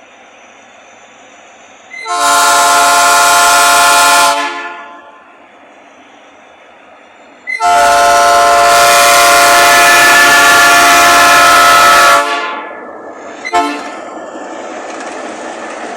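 Train horn sounding two blasts with several tones at once: one of about two seconds, then a long one of over four seconds, the long final blast of a signal of four standard honks and a long fifth. After it fades comes a sharp knock, then a steady rushing noise.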